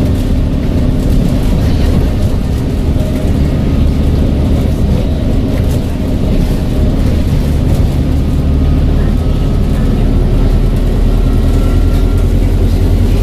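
ADL Enviro 400H hybrid double-decker bus running with a steady low engine drone. A faint high turbo whistle comes in about nine seconds in and fades a few seconds later.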